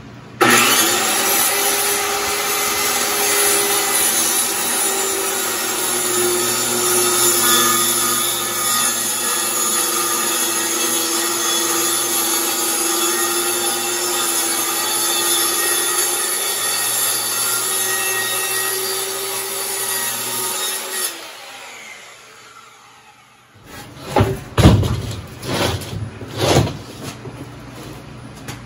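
Corded circular saw starting up and ripping a long cut through a sheet of OSB, running steadily for about twenty seconds before it stops. A few loud knocks follow near the end.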